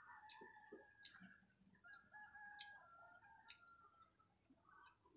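A rooster crowing twice, faintly, each crow a steady call of just over a second. A few soft clicks are scattered between the crows.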